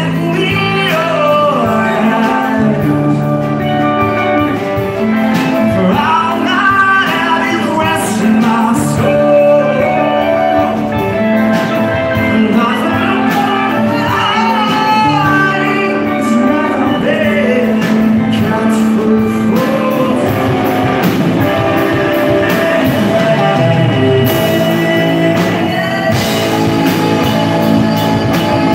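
Live rock band playing: a lead vocalist sings over electric guitar and drums.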